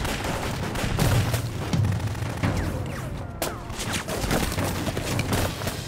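Film gunfire: many shots fired in quick, overlapping succession, like a volley of fire.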